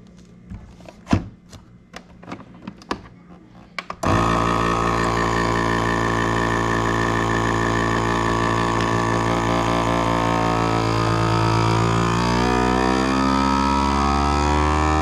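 Clicks and rustling as a vacuum bag is fitted into a FoodSaver vacuum sealer. About four seconds in, the sealer's pump starts suddenly and runs with a steady hum. Its pitch shifts near the end as the bag is drawn tight.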